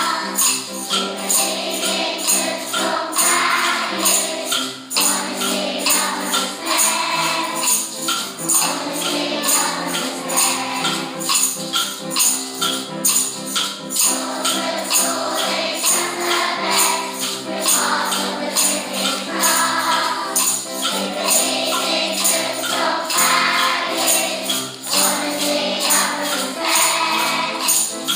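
Music with a steady, even beat of shaken percussion and voices singing.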